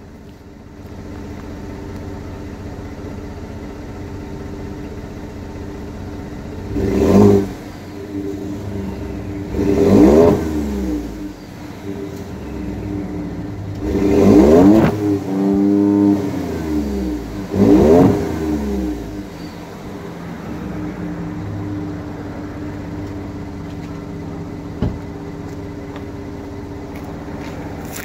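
Stock exhaust of a 2017 Ford F-150's 2.7-litre twin-turbo EcoBoost V6, heard at the tailpipe, idling steadily and revved four times, each rev rising in pitch and falling back to idle.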